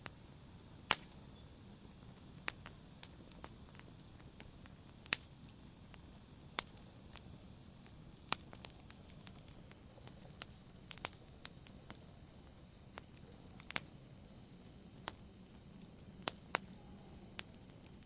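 Wood fire in a fireplace crackling: irregular sharp pops and snaps from the burning logs, one to three a second, over a soft steady hiss of the flames.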